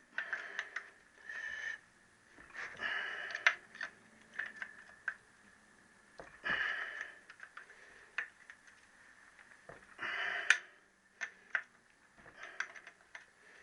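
A steel spanner working the cylinder barrel base nuts of a Triumph T120R engine as they are cracked loose: sharp metallic clicks as the spanner goes on and off the nuts, with four short rasping scrapes.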